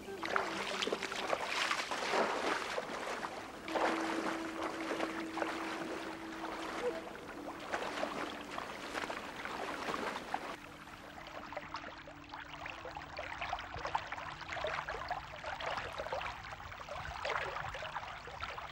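Shallow water sloshing and splashing around a person wading, with many small irregular splashes and trickles. About ten seconds in it becomes quieter and duller.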